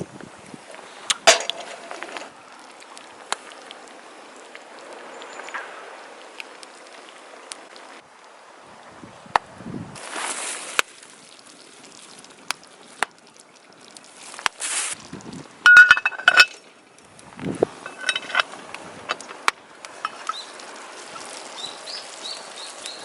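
Camp cooking handling noises: scattered clicks and knocks with a couple of short ringing metal clinks from cookware and utensils about two-thirds of the way through.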